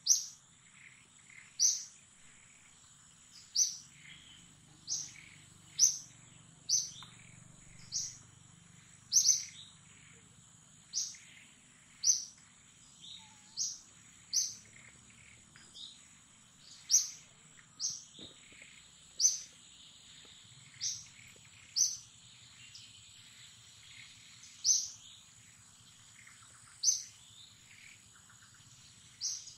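A bird repeating a short, sharp, high-pitched chirp that sweeps downward, about once every one to two seconds. A steady thin high whine runs underneath.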